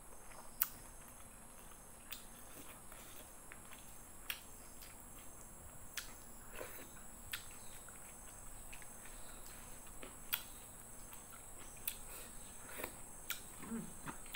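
Close eating sounds from a person eating with her hands: scattered sharp mouth clicks and lip smacks every second or two while chewing, over a faint steady high-pitched hum.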